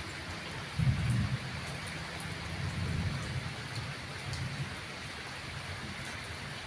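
Steady rain falling. A low rumble swells about a second in, then fades away over the next few seconds.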